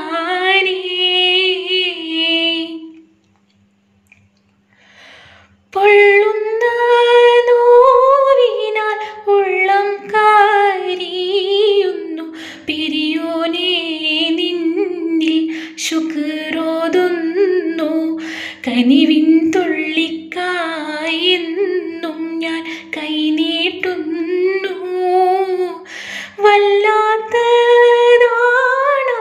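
A woman singing a slow melody, breaking off for about three seconds near the start and then going on. A faint steady hum runs underneath.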